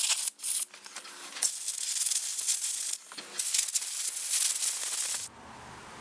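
Compressed-air blow gun hissing in several blasts, the longest about two seconds, blowing dirt and old grease out of a power sliding door motor's cable spool housing. The hiss stops about five seconds in.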